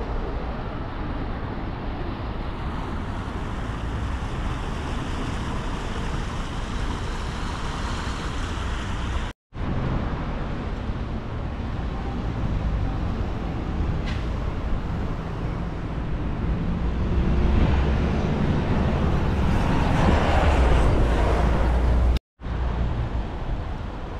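Road traffic: cars and buses passing, mixed with the rumble of wind on the microphone. It swells louder about three-quarters of the way through as a vehicle goes by, and the sound cuts out briefly twice.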